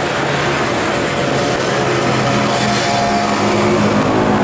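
Diesel-electric locomotive engine running with a steady hum. About two seconds in, further steady tones come in above it.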